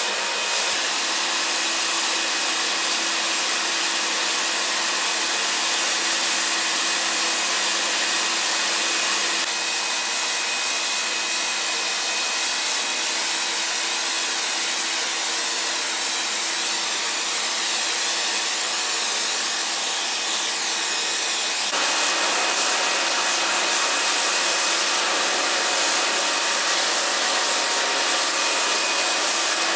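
A machine running steadily: a continuous loud hiss over a constant hum, its tone shifting abruptly about ten seconds in and again about twenty-two seconds in.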